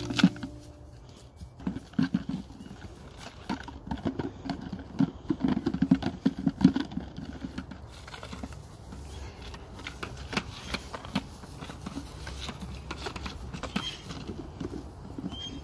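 Borzoi puppy digging and pawing at grassy soil: irregular scratching, scuffling and rustling, busiest in the first half and thinning out later.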